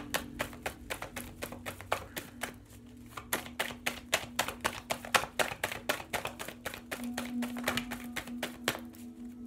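A deck of cards being shuffled by hand, overhand, the packets clacking together about four times a second; the shuffling stops just before the end. A steady low tone sounds underneath.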